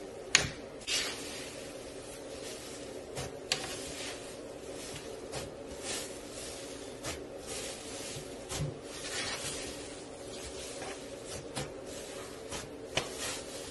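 Pink cloud slime being pressed, stretched and pulled apart by hand, giving irregular sticky crackles and pops, over a steady low background hum.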